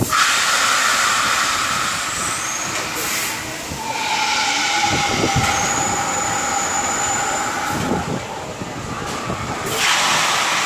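A drop-tower thrill ride in motion: a loud rushing hiss with several steady whistling tones over it, easing briefly about four seconds in and again near the end.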